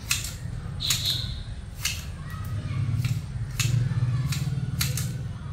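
Garden shears snipping bamboo stems: a crisp snip of the blades about once a second, over a steady low hum.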